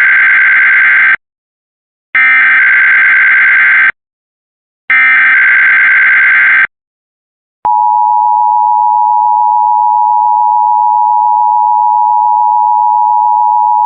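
Emergency Alert System header for a Required Monthly Test: three bursts of SAME digital data tones, each under two seconds with about a second between them, followed by the steady two-tone attention signal (853 and 960 Hz), which starts about eight seconds in and holds unchanged.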